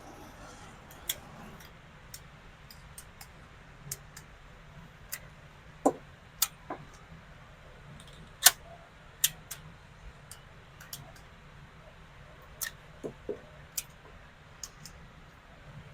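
Scattered sharp clicks and cracks, about fifteen at irregular intervals, the loudest about eight and a half seconds in, over a low steady hum of an indoor shooting range.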